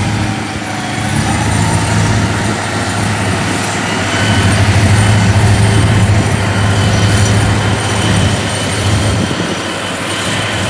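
Engine of a small homemade rice harvester running steadily under load as it drives through the rice, a continuous low drone that swells and eases slightly.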